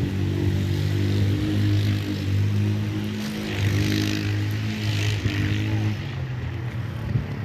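Road traffic: a vehicle engine running steadily close by, with a hiss of tyres from a vehicle passing about three to five seconds in. The engine note fades out about six seconds in.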